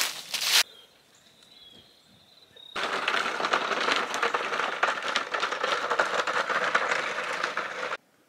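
Dry fallen leaves crunching underfoot for a moment. After a short quiet gap comes a steady, gravelly crackle of plastic toy wheels rolling over a gravel driveway, which stops abruptly near the end.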